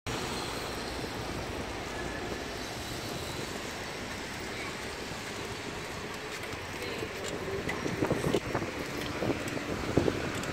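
Steady outdoor city background noise of distant road traffic, with wind on the microphone. A few short clicks and knocks come in the last three seconds.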